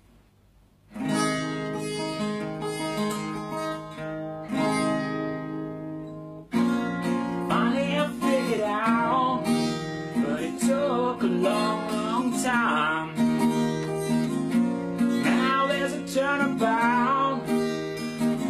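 Acoustic guitar strummed in a steady rhythm, starting about a second in and getting louder and fuller about six and a half seconds in.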